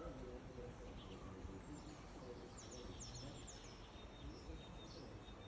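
Small birds chirping over a steady background hiss of outdoor ambience. About two and a half seconds in comes a quick run of short, high, down-slurred chirps.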